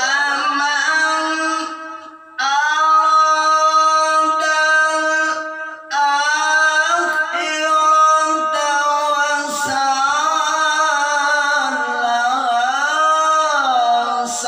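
Male Qur'an reciter (qari) chanting a verse in a high, strong voice with long held notes. There are three drawn-out phrases with brief breaths about two and six seconds in, and the last phrase winds up and down in ornamental turns near the end.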